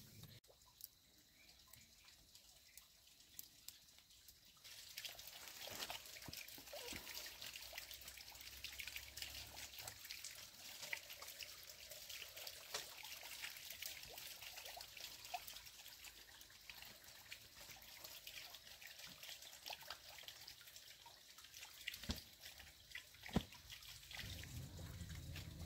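Faint forest ambience: a soft high hiss with many light ticks from about five seconds in, and two sharper clicks near the end.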